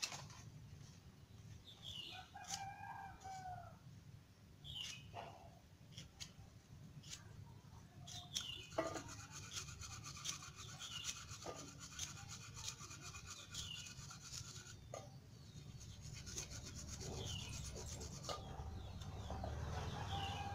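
A rooster crowing, with a bird repeating a short falling chirp every second or two. Beneath it is faint rubbing and stripping as the skin is peeled by hand from taro stalks.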